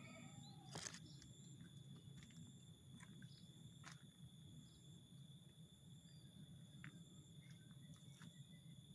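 Near silence: faint outdoor ambience under a steady high-pitched insect trill, with a faint low hum. A soft click comes about a second in, and a few fainter ticks follow.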